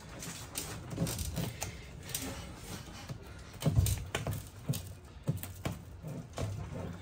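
Scattered taps, knocks and rustles as a locker bin hung on duct-tape straps is handled and pulled up into its cut-out in a fiberglass cockpit, with a heavier thump about four seconds in.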